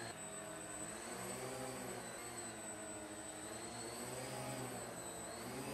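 Electric motors and propellers of a Pixhawk-controlled VTOL tail-sitter flying wing hovering in multicopter mode. It makes a steady whine whose pitch rises and falls every second or so as the throttle shifts.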